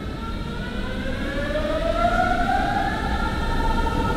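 Berlin S-Bahn class 481 electric train starting off, its traction motors giving a whine of several tones that rises in pitch, then levels off about three seconds in, over a low rumble.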